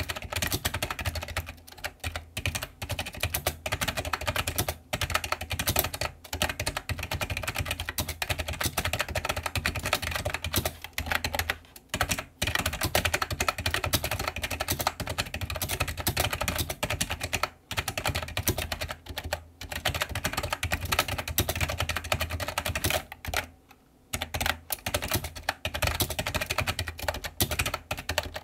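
Rapid, continuous typing on an iMAGiC G-Keyboard II Echo plunger-switch keyboard, a dense run of key clicks broken by a few short pauses, the longest about a second, four-fifths of the way through.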